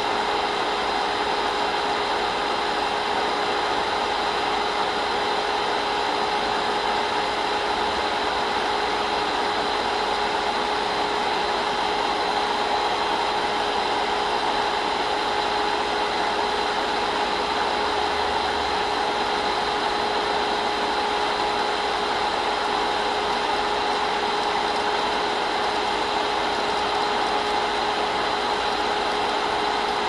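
A projector running: a steady mechanical whir with a constant hum through it.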